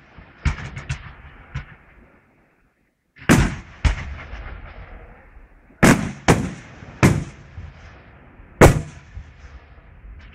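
Fireworks display: a run of sharp bangs from bursting aerial shells, with a crackling hiss fading after each. Smaller bangs come in the first two seconds, then a short lull, then a fresh volley of six louder bangs.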